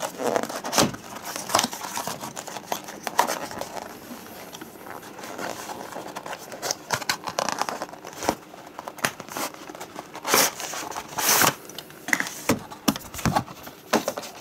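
Cardboard packaging being handled and opened by hand: an outer box sleeve sliding off and an inner box being opened, with repeated scrapes, rustles and light knocks of card, a few sharper ones about ten seconds in.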